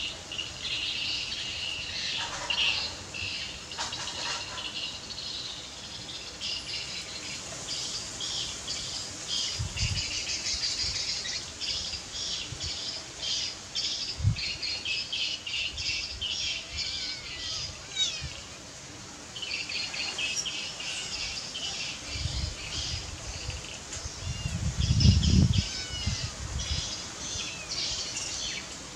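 Many small birds chirping densely and continuously, with a short lull a little past halfway. Low rumbling thumps come in now and then and are loudest about three-quarters of the way through.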